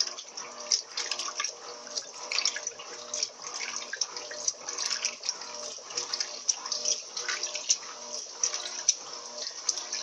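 Turbo Capacidade LT13B top-loading washing machine agitating its load in the rinse at the medium water level. Water sloshes and splashes irregularly around the agitator over a steady low hum.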